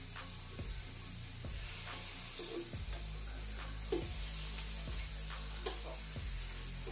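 Raw turkey slices sizzling steadily on a hot electric griddle, with a few light clicks as more slices are laid down with metal tongs.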